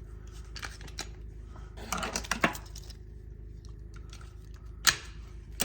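Small hard objects being handled: a few sharp clicks and a short clattering rattle about two seconds in, with a louder click near the end, over a faint steady low hum.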